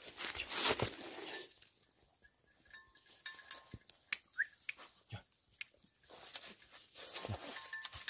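Dry fallen leaves rustling under a large dog's nose and paws as it sniffs and roots through them. The rustling is densest in the first second and a half, then gives way to scattered short rustles and clicks.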